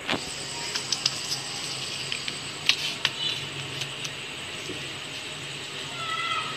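Hands handling samosa pastry and a wooden stick on a crinkly plastic or foil sheet: scattered light clicks, taps and crinkles.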